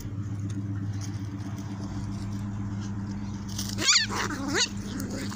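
A puppy yelping sharply about four seconds in, then giving a falling whine, as two puppies wrestle. A steady low hum runs underneath.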